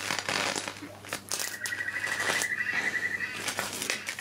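High-voltage arc crackling and sizzling across a smart meter communications circuit board, fed by a neon sign transformer setup, as the board's components burn. About a second and a half in, a high pulsing whine joins the crackle for roughly two seconds.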